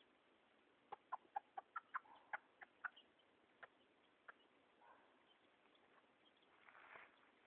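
Silver Sebright hen clucking: a quick run of about nine short, sharp clucks about a second in, then two single clucks. A soft rustle follows near the end.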